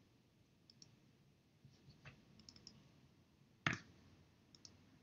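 Quiet room with faint, scattered clicks from operating a computer, and one sharper click about three-quarters of the way through.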